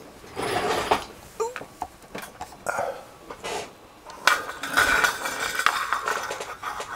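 Metal hand tools clinking and rattling in several bursts as they are picked up and handled.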